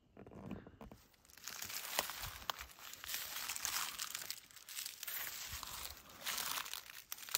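Dry leaves and brush rustling and crunching underfoot, in an irregular run with a few sharp snaps, starting about a second in.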